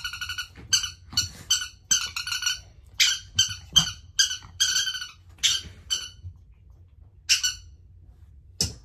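Squeaky dog toy squeezed over and over: short, sharp, high squeaks, two or three a second, thinning to two single squeaks near the end.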